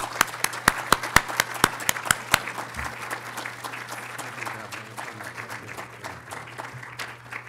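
An audience applauding. Close, sharp hand claps near the podium microphone stand out for the first two and a half seconds, then the applause carries on as an even patter that thins out toward the end, over a steady low hum.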